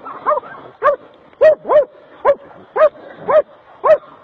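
A dog barking over and over, about eight short barks at roughly two a second.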